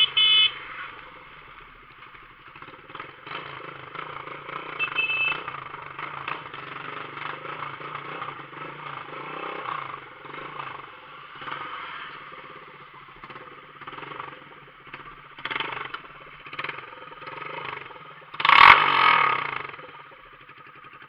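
Motorcycle with a straight pipe ("só o cano", just the pipe) running steadily as it rides, with a loud burst of exhaust noise about eighteen seconds in lasting a second or so. A brief horn-like beep sounds right at the start.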